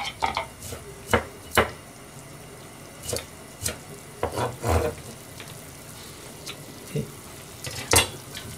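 Kitchen utensils and dishes being handled, giving about nine scattered knocks and clinks, the loudest near the end, over a faint steady hiss.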